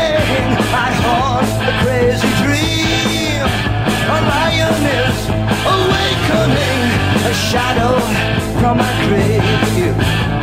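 Rock music: a band playing, with a lead melody that bends and wavers in pitch over a steady bass and drum backing.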